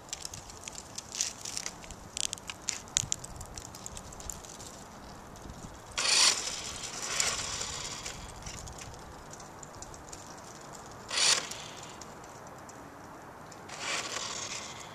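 Radio-controlled toy car's small electric motor whirring in four short bursts as it drives in brief spurts on asphalt, after a run of light clicks in the first few seconds.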